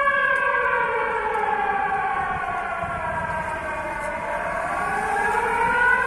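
Civil defense air raid siren sounding an alert, wailing: its pitch falls slowly for about four seconds, then starts to rise again near the end.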